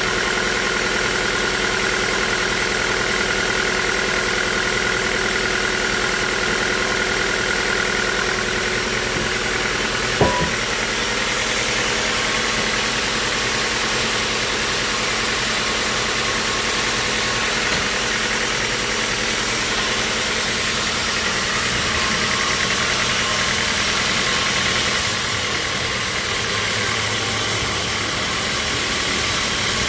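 Sawmill machinery running steadily, with a steady whine that stops about nine seconds in and a single sharp knock about ten seconds in.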